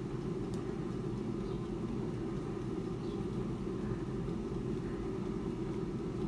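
Klarstein AeroVital air fryer running while it heats: a steady, low fan hum.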